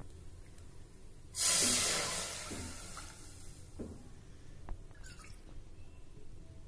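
A bowlful of milk tipped from a steel bowl into a kadai: a sudden gushing pour about a second and a half in that fades away over a second or so, followed by a few faint clicks.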